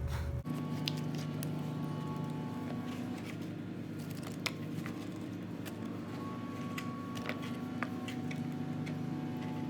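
Hands mixing raw chicken with chopped vegetables and seasoning in a bowl: soft squishing with scattered sharp clicks, over a steady faint hum.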